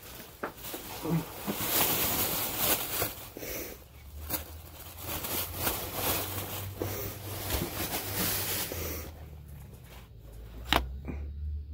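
Cloth rustling and swishing as garments are pulled about and handled, with a few light clicks and one sharp click near the end.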